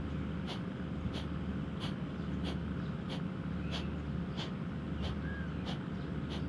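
Quiet outdoor background: a faint, even ticking about twice a second over a low steady hum, with one short chirp about five seconds in.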